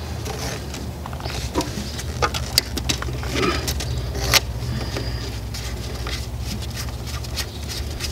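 Scattered clicks and scrapes of new electrical conduit being threaded into its fitting by hand, the sharpest click about four seconds in, over a steady low hum.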